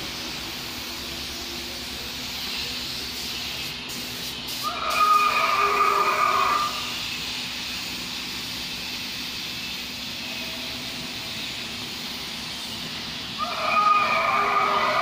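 Animatronic T. rex playing a recorded dinosaur roar through its speaker, twice: about two seconds each, once about five seconds in and again near the end, over a steady low hum.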